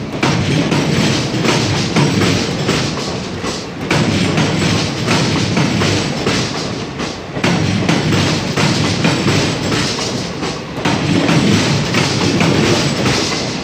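Wheels of passing Indian Railways passenger coaches clattering over a crossover's points and rail joints: loud, repeated thuds and clacks over a continuous rolling rumble.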